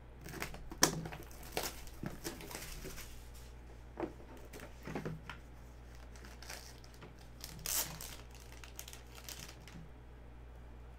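Cellophane shrink wrap on a trading card box being slit and pulled off, crinkling and tearing in short scattered rustles and crackles.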